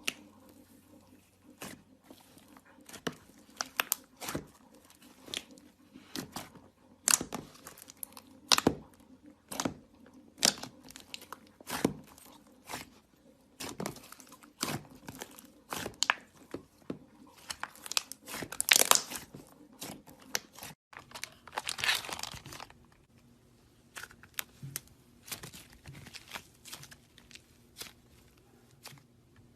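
Slime being squeezed and worked by hand, giving a run of sharp, irregular crackling clicks and pops, with a denser crackle about two-thirds of the way through.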